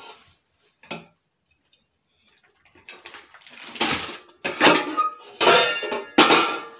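Stainless steel pots and glass pot lids clanking and scraping against each other as they are lifted out of a box of nested cookware. There is one light knock about a second in, then after a short lull a series of loud metallic clanks with brief ringing.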